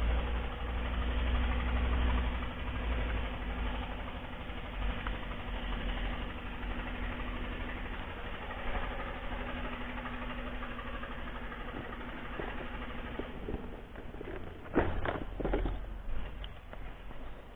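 An engine running steadily in the background, its even hum dying away about three-quarters of the way through. Near the end come a few knocks and rustles of handling.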